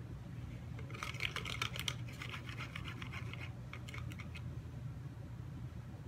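Toothed paint comb scraping across the canvas and wet acrylic paint: a fast run of scratchy ticks starting about a second in and lasting about three and a half seconds, thinning out before it stops. A low steady hum sits underneath.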